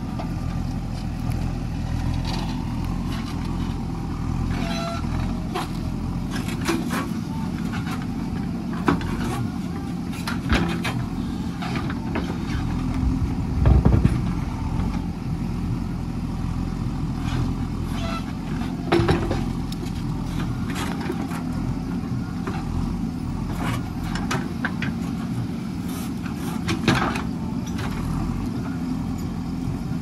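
JCB backhoe loader's diesel engine running steadily as the rear excavator arm digs. Scattered knocks and scrapes of the bucket in soil and stones run through it, with one louder clunk about halfway through.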